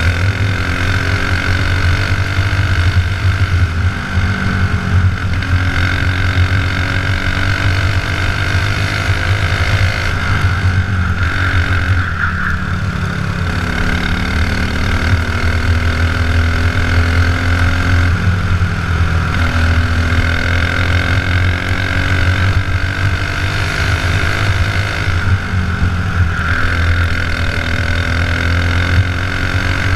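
Dirt-oval racing kart's small engine heard from on board at racing speed, its pitch climbing along each straight and dropping into each turn, about every seven seconds.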